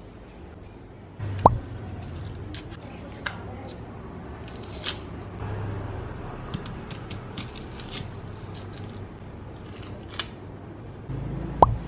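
Small kitchen knife peeling and cutting an onion on a silicone cutting mat: scattered small clicks and scrapes. Two sharp knocks stand out, one about a second and a half in and one near the end.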